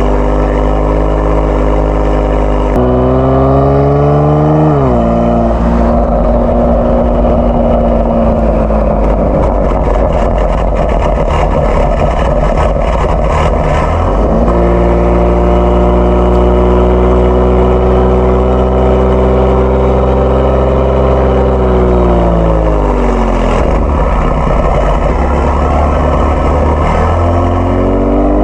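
Kia Stinger 3.3 twin-turbo V6 through a JSR Performance aftermarket exhaust, on the move. The engine note climbs under acceleration about three seconds in and drops at a gear change, followed by a stretch of rough, loud exhaust noise. It climbs again around the middle, holds steady while cruising, falls away as the car slows, and rises once more near the end.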